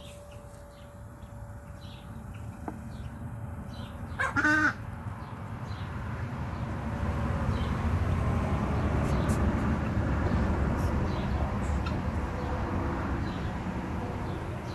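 A single loud, harsh bird call lasting about half a second, a little over four seconds in. After it a low rumbling noise builds up and stays.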